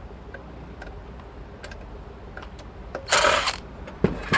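Ryobi cordless driver running in one short burst of about half a second, about three seconds in, backing a screw out of a power supply's steel case. Two light clicks follow near the end.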